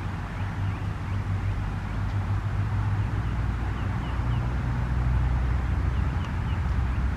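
A low, steady rumble that grows a little louder toward the end, with small birds chirping repeatedly over it.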